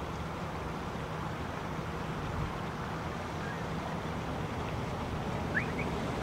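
Steady low hum and hiss of background noise, with a faint, brief rising chirp about five and a half seconds in.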